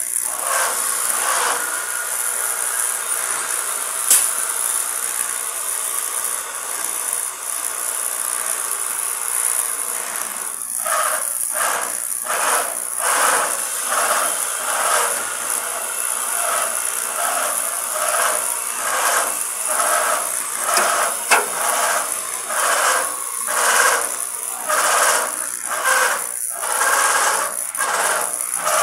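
Stick (arc) welding on 1/8-inch steel plate at high amperage: the electrode arc runs with a steady hiss. From about ten seconds in, it pulses roughly once a second, with a sharp click twice.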